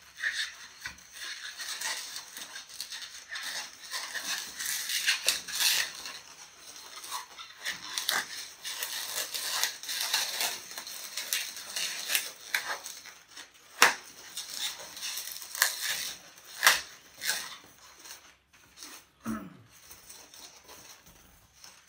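Latex modelling balloons squeaking and rubbing against each other as they are twisted and locked together by hand, with a few sharp squeaks. The rubbing thins out over the last few seconds.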